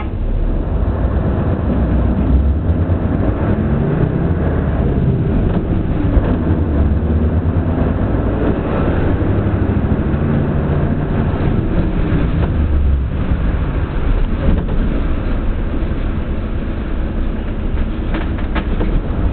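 Interior of a city bus on the move: the engine's low drone and road noise run continuously, the engine note rising and falling a little with speed.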